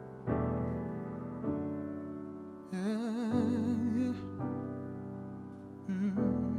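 Slow R&B piano chords, struck a few times and left to ring, with a male voice holding a wordless sung note with vibrato in the middle and starting another near the end.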